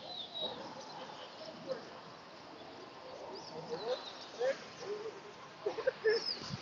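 Ducks and geese calling: a scatter of short calls that grow busier in the second half, with a few higher chirps from other birds.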